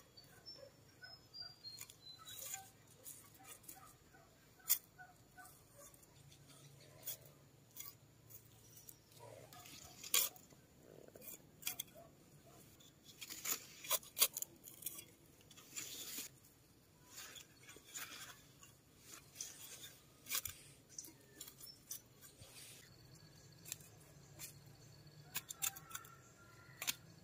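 A small hand trowel digging and scraping in loose garden soil, in irregular short scrapes and knocks, as holes are made and seedlings set in.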